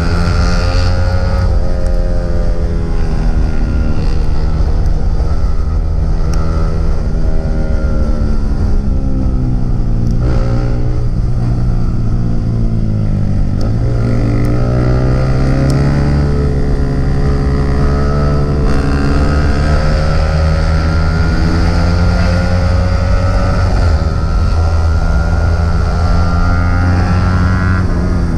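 150 cc single-cylinder sport motorcycle engine heard from onboard at speed, its note falling and climbing again with throttle and gear changes, with sharp dips around ten and thirteen seconds in. Heavy wind rumble on the microphone runs underneath.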